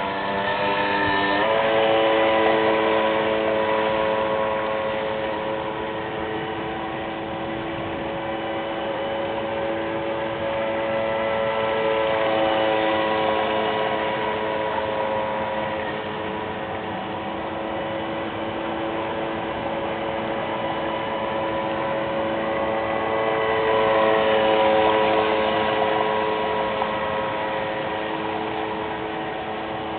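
RC speedboat's brushless electric motor, run on 12 cells through a reduction gearbox, giving a steady high whine at speed. The pitch steps up about a second and a half in, and the whine swells louder three times as the boat passes.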